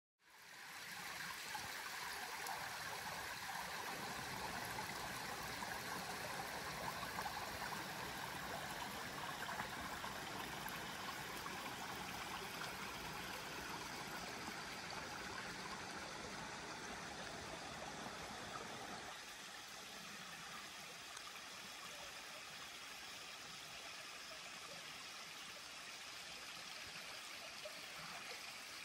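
A small woodland stream running over its bed, a steady rush of water that fades in at the start and turns a little quieter about two-thirds of the way through.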